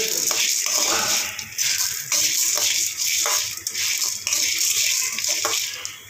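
Spatula scraping and stirring dal, dried red chillies and garlic as they dry-roast in an aluminium kadai, with many short scrapes and taps against the pan over a steady hiss.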